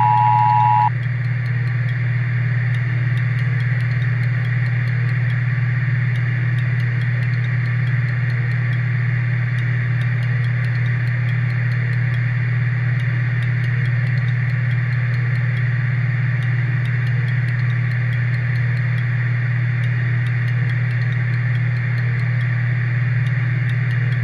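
The Emergency Alert System two-tone attention signal cuts off about a second in. It leaves a steady low hum with hiss: dead air where the test's voice message would be.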